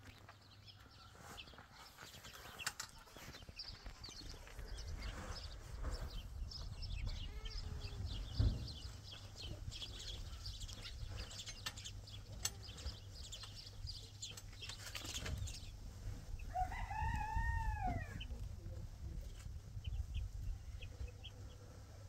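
Chickens foraging, with scattered short chirps and clucks throughout. One drawn-out call rises and falls about three quarters of the way in.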